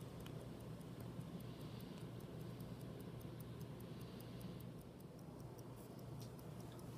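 Mechanical movement of a vintage single-button chronograph wristwatch ticking, fast and even.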